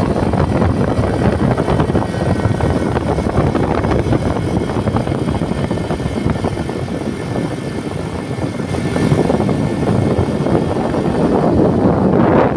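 Wind rushing and buffeting over the phone's microphone while riding on a moving open motorcycle, with the road and engine noise blended in underneath.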